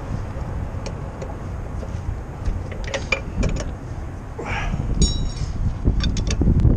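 Scattered metallic clinks and taps of steel hand tools on a truck wheel during a tire change, with a brief ringing metal tone about five seconds in, over a steady low wind rumble on the microphone.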